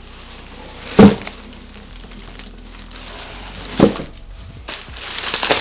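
Two sharp knocks, the first about a second in and louder, the second near four seconds, as a cardboard box and a heavy scratcher are handled; then plastic wrapping crinkling near the end.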